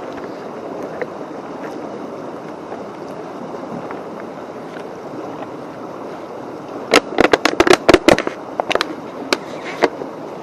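A brook running steadily. A quick run of sharp clicks and knocks comes about seven seconds in, with a few single ones after.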